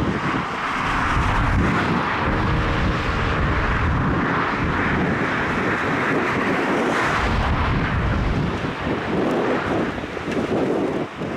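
Jet airliner engines running as the aircraft passes, a steady rushing jet noise, with wind buffeting the microphone.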